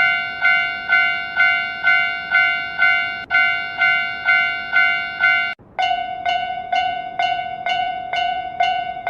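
Japanese railroad-crossing warning bell dinging about twice a second. A little over halfway through it switches to a different crossing bell with a warbling tone at the same pace.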